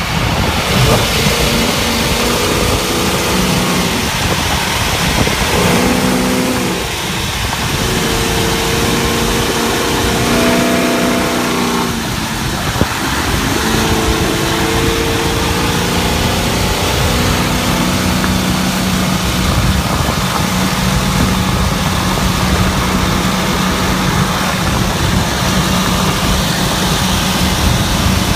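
2011 Chevrolet Caprice 9C1 police car's engine running. For the first stretch its pitch is held at several levels and changes in steps, then it settles into a steady drone near the end.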